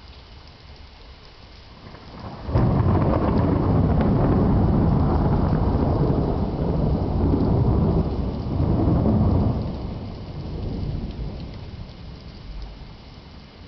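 Thunder: a sudden loud clap about two and a half seconds in, a heavy rumble lasting about seven seconds, then dying away. Steady rain hisses underneath throughout.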